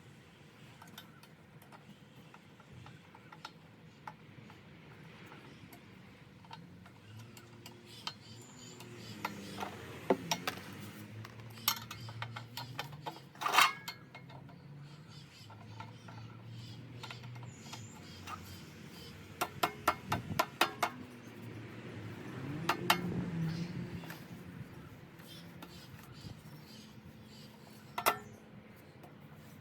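Metal parts of a hand lawn mower clinking and knocking as it is assembled: scattered clicks, a cluster of rapid taps about two-thirds of the way in, and a single knock near the end.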